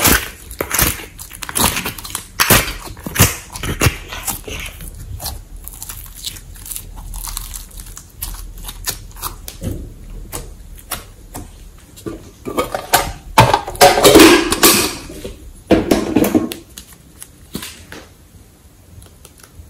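Slime handling: sticky clicks and crackles as slime and clay are pressed out of a clear plastic compartment tray, then louder wet squishing and popping as the slime is worked in a glass dish of white glossy slime, loudest about two thirds through and fainter near the end.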